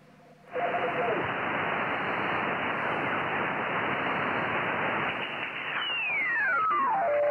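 Shortwave receiver in upper-sideband mode being tuned across the band: a loud steady static hiss starts about half a second in. Near the end a whistle falls from high to low as the receiver is tuned onto an AM broadcast station's carrier, settling into a low hum.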